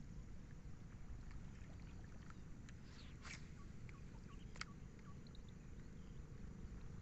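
Low, steady rumble of water and wind around a small wooden boat on swamp water, with a few sharp clicks about three and four and a half seconds in and faint short chirps.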